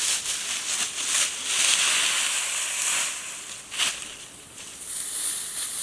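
Dry straw and stalks rustling and crunching as they are tossed and beaten with a long wooden pole, with a few sharp knocks, one louder near the middle. A steady high hiss sets in near the end.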